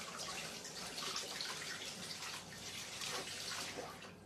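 Kitchen tap running into a stainless-steel sink as hands are washed under the stream; the water cuts off suddenly near the end.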